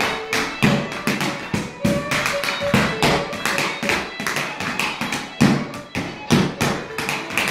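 Hard-soled stepdance shoes striking boards in quick, rhythmic taps and heavier stamps, over fiddle music.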